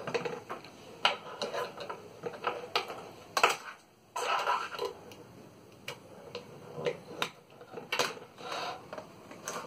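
Handling noise of small circuit boards and cables being moved on a wooden tabletop: irregular light clicks and knocks, the sharpest about three and a half seconds in.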